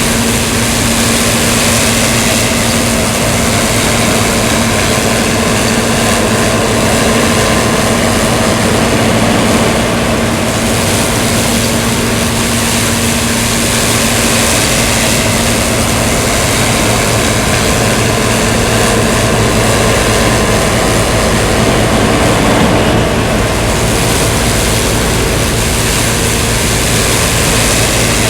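John Deere 7720 Turbo combine running steadily while harvesting wheat: its 466 cubic inch turbocharged six-cylinder diesel under load, with the threshing machinery going. It is loud throughout, with a steady engine hum that eases about halfway through.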